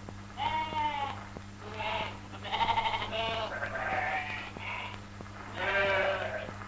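Sheep bleating, about six calls in a row, some of them quavering, over a steady low hum and faint crackle.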